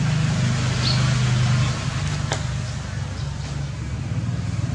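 A steady low mechanical hum, with a short high chirp about a second in and a sharp click a little past two seconds in.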